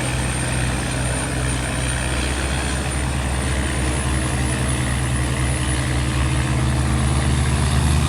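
Boat engine droning steadily, a low even hum with a thin high whine above it that slowly creeps up in pitch; it grows slightly louder near the end.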